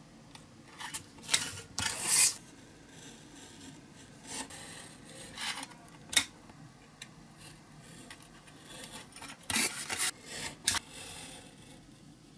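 Craft knife blade drawn along a metal ruler, cutting thin printed card on a cutting mat: short scratchy strokes in a few clusters, with a sharp click about six seconds in.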